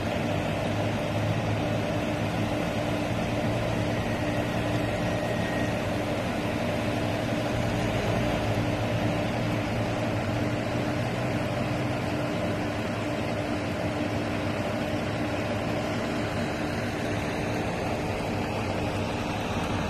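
Steady mechanical hum of running machinery, several even tones under a continuous rushing noise.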